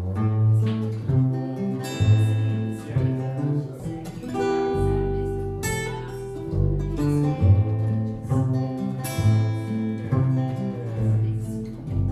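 A small acoustic band starting a song: strummed acoustic guitar and plucked double bass, with a bowed violin carrying the melody.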